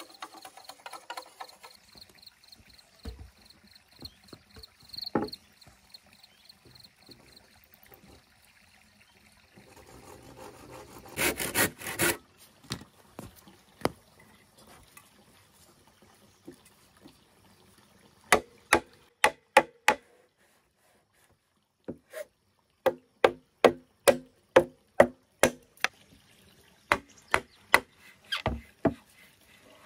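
Dried bamboo being struck in quick runs of sharp blows, several a second, each with a short hollow ring. There is a brief rasping scrape partway through.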